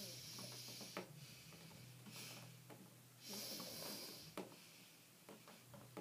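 A person breathing close to the microphone: two breathy hisses of about a second each, one at the start and one just past the middle, with a few faint clicks over a low steady hum.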